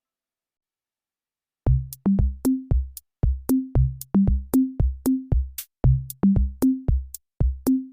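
Silence, then about a second and a half in an electronic backing track with a drum-machine beat starts. It has sharp hits about three a second over a bouncy bass line that steps up and down.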